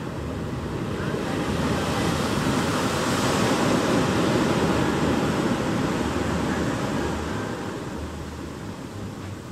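Pacific Ocean surf: a wave breaks and rushes up the beach. The noisy wash swells over the first few seconds, peaks in the middle, then slowly fades as the water draws back.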